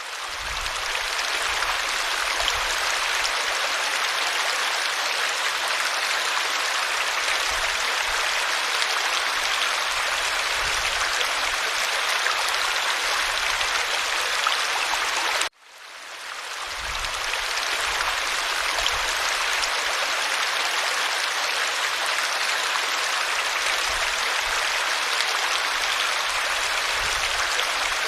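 Steady rushing of a stream. About fifteen seconds in it cuts out abruptly for a moment, then fades back up over a second or two.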